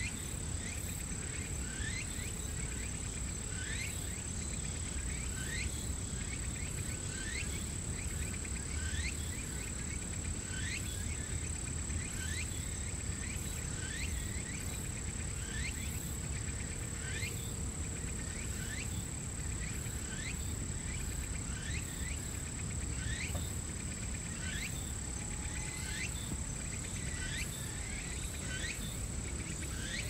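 Short animal chirps, each falling in pitch, repeating about once a second over a steady low rumble, with a thin steady high whine.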